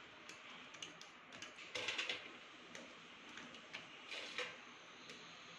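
Chocolate cream biscuits being snapped into pieces by hand and dropped into a stainless steel mixer jar: faint crisp snaps and clicks, with louder crackling about two seconds in and again about four seconds in.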